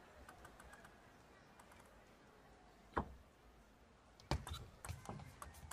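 Table tennis ball clicking off the rackets and the table: a single sharp click about three seconds in, then a quick, irregular run of clicks as a rally gets going.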